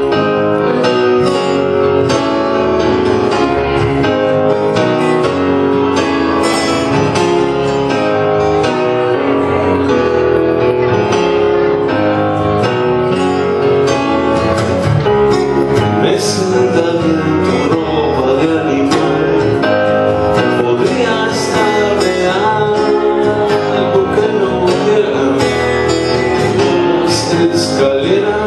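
Live song played on a strummed acoustic guitar with an electric keyboard, and a man singing, mostly in the second half.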